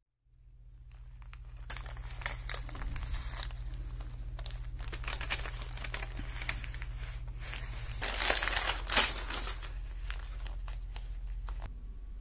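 Double-sided carpet seam tape being handled, laid and pressed down along cut carpet edges: irregular crinkling and tearing, loudest about eight to nine seconds in, over a steady low hum.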